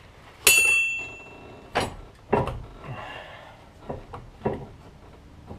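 Metal hand tools and bolts being handled: a sharp ringing metallic clank about half a second in, then several duller knocks and taps as parts are fitted at the suspension.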